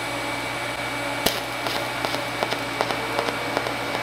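TIG welding arc on a small steel dog gear: a steady electric buzz and hiss, with one sharp crack about a second in and small crackles and ticks scattered through the next two seconds.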